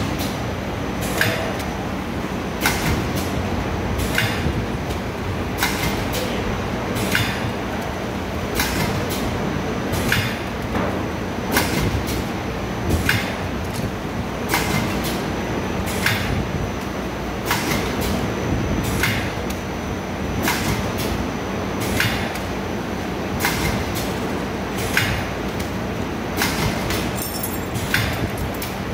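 Automatic tobacco pouch packing machine running, with a sharp clack about every second and a half, one per pouch cycle, over a steady motor hum.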